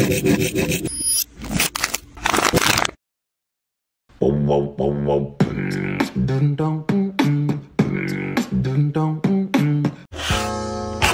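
A metal fork scrapes a powdery yellow ball in a run of short scraping strokes for about three seconds. After a second of silence, a rhythmic beatbox-like vocal melody of short notes stepping up and down runs for about six seconds.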